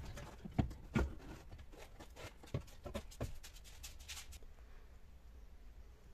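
Clicks, knocks and light rattles of a car's rear seat metal frame and hinges as it is tipped up and lifted out, a few sharp knocks in the first second; they stop about four and a half seconds in, leaving a faint low hum.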